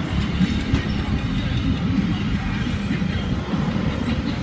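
Freight train rolling on the line, a steady low rumble with faint clatter.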